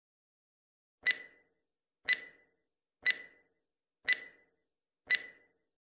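Countdown-timer tick sound effect: five sharp ticks, one a second, each with a brief ringing tail, starting about a second in.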